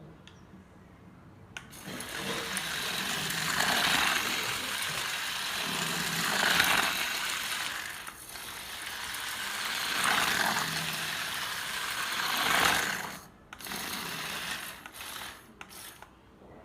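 Small electric motors and gears of a radio-controlled model combine harvester whirring, swelling and easing off several times. Near the end it stops, then runs again in a few short spurts.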